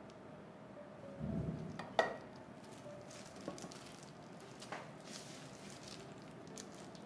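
Plastic crinkle cutter pressed down through a block of agar-agar jelly on a ceramic plate: a soft low thud about a second in, then a sharp click as the blade meets the plate, followed by a few faint light taps.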